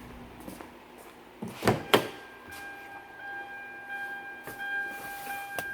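Two sharp clunks about a second and a half in, then a steady high electronic tone that holds on after them.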